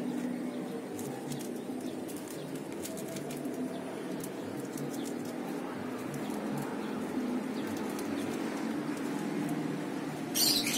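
Doves cooing in the background, with faint ticks from hands tying string around a plastic-wrapped air layer. A short rustle comes near the end.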